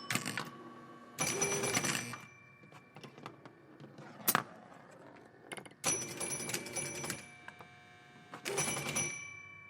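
Pinball machine in play: rapid clacking and knocking with bells ringing at several fixed pitches. Three busy bursts of hits and bells ring on and fade, with single sharp knocks between them.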